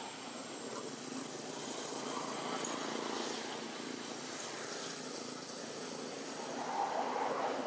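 Steady outdoor background noise: an even hiss-like haze with no distinct event, swelling briefly near the end.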